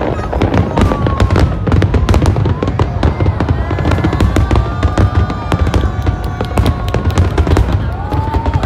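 Aerial fireworks display: a dense run of rapid bangs and crackling over deep booms from shells bursting overhead.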